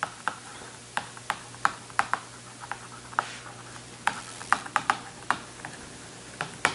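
Marker pen writing on a whiteboard: an irregular run of short, sharp taps and scratches, a few a second, as the letters go down, over a faint steady low hum.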